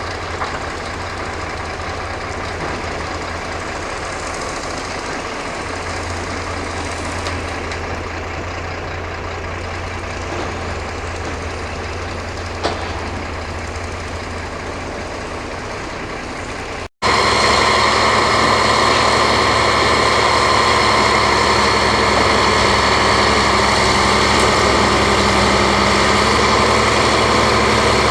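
Caterpillar D7 bulldozer's diesel engine running steadily under a low hum. About two-thirds of the way through the sound cuts out for a moment and comes back louder, with steady high whining tones over the engine.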